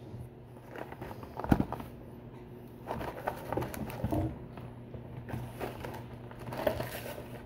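Snack packaging being handled: scattered light taps and rustles of a small cardboard snack box and a cardboard shipping box, with a sharper knock about a second and a half in.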